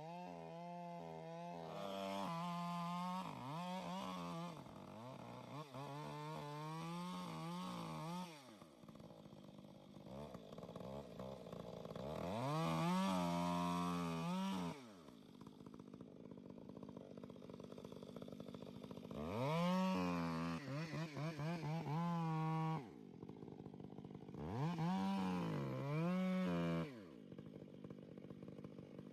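Two-stroke chainsaw engine revved again and again: its pitch climbs for a few seconds under throttle, then falls back to a lower idle between bursts.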